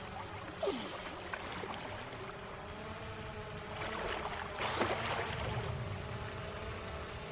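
Quadcopter drone hovering, its propellers humming steadily at several close pitches. About four seconds in, a brief rush of louder noise rises over the hum and fades out.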